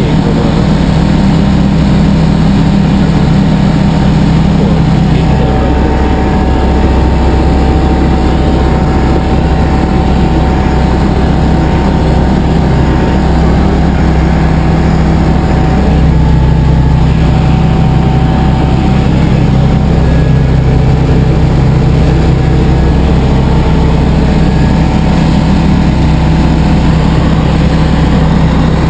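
Diamond DA20 light aircraft's piston engine and propeller running at a steady cruise, heard from inside the cockpit as a loud, unbroken drone.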